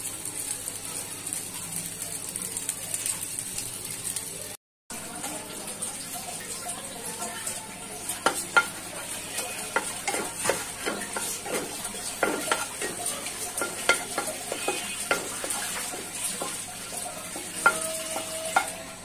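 A wooden spatula stirring thick simmering dal in a pan. Then, after a cut, whole dried red chillies frying in hot oil with a steady sizzle, and the spatula knocking and scraping on the pan many times from about 8 seconds in.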